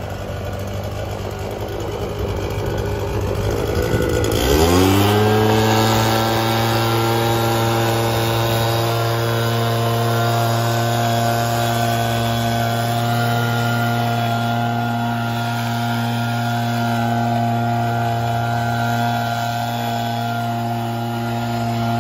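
Backpack leaf blower's engine revving up about four seconds in, then running steadily at high speed.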